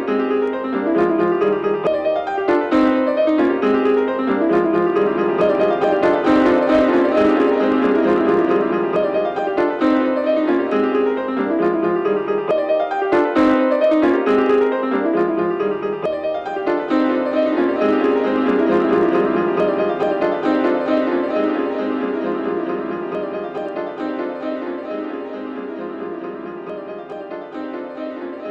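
Classical piano music, fast runs of repeated note figures in the middle register, fading gradually in the last several seconds.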